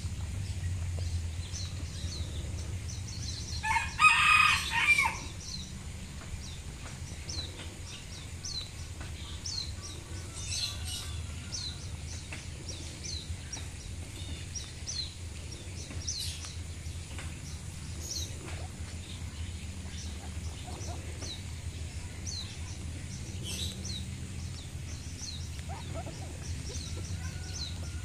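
A rooster crows once, about four seconds in, in a call lasting about a second. Short high chirps repeat throughout, every second or so.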